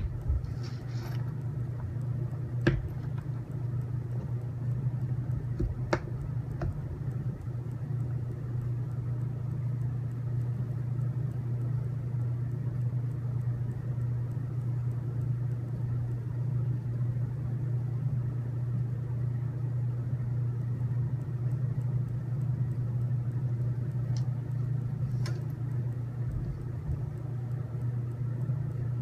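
Steady low hum, with a few light clicks and taps of small parts being handled scattered through it.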